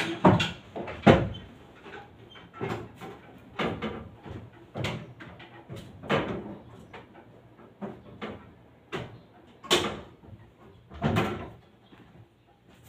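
Irregular knocks, clunks and clicks of someone handling things and moving about, with two sharp, loud knocks in the first second and softer ones about every second after.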